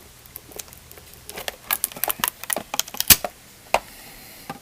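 Trading cards and their packaging handled by hand: a flurry of short, sharp clicks and crinkles, thickest between about one and a half and three seconds in, then one last click.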